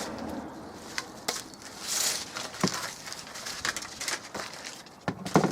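Handling noises: scattered light knocks and clicks, with a brief rubbing swish about two seconds in.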